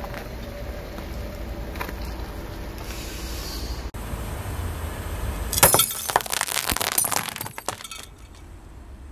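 A car tyre rolling over and crushing brittle objects: a low, steady rumble from the car, then a little past halfway a dense burst of sharp cracking and crunching that lasts about two seconds and fades.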